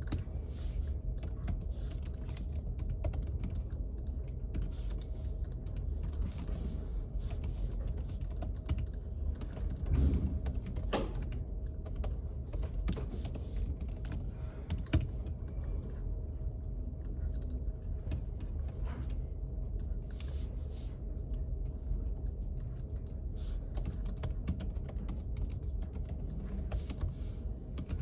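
Typing on a computer keyboard: irregular runs of key clicks over a steady low hum, with a louder bump about ten seconds in and a sharper knock about fifteen seconds in.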